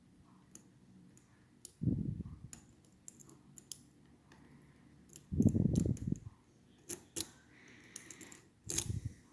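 Small metallic clicks and scrapes of a pick working inside a Schlage Primus Everest lock cylinder, with three short dull low handling bumps, the loudest about five and a half seconds in.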